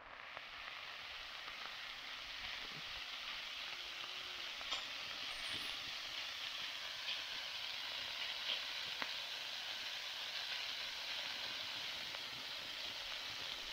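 Chicken pieces and fried rice sizzling steadily on a flat pan over a campfire while a spatula stirs them, with a few faint clicks.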